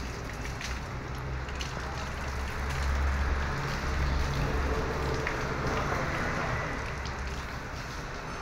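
A large bus's diesel engine running at low revs: a steady low rumble that swells a little around three to four seconds in. A few faint clicks sound over it.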